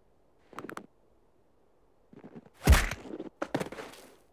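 Animation sound effect of a severed head dropping onto dirt ground: one heavy thump about two and a half seconds in, with a few smaller knocks and scuffs before and after it.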